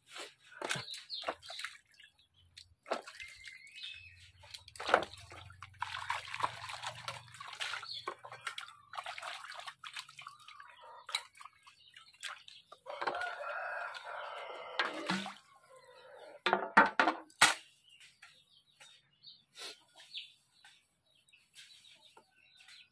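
Dishes being washed by hand in water: splashing and drips, with a steel bowl and plate clinking and knocking against each other. Chickens cluck throughout, and a rooster crows once a little past halfway.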